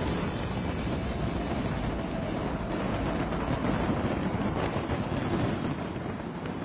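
Fireworks display: a continuous rumble of bursts, with sharp crackles coming thicker from about halfway through.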